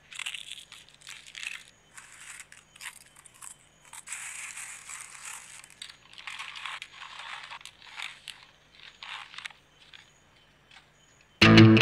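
Crisp oven-dried apple chips crackling and crunching as a hand squeezes and handles them, then rustling into plastic zip bags. The sound comes in irregular crackly bursts and stops about ten seconds in. The crispness shows the chips have cooled after baking.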